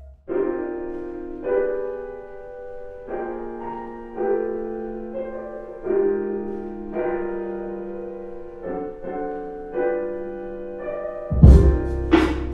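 Lo-fi hip-hop track opening on soft piano chords, a new chord about every second and a half, with no drums. A drum beat with a deep kick comes in near the end.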